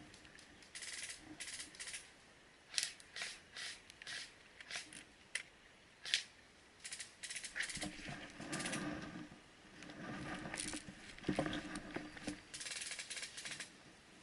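Rustling and crunching of dry leaves and brush as someone moves through vegetation, in irregular bursts with a few sharper snaps.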